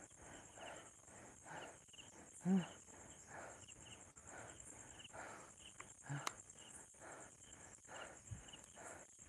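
A man's heavy, laboured breathing, about one breath a second, with a short groan about two and a half seconds in. Behind it, crickets keep up a steady high trill.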